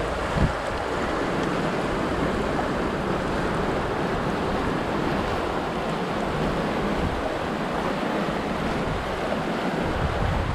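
Mountain river rushing steadily over a rocky riffle, with wind rumbling on the microphone and a brief bump about half a second in.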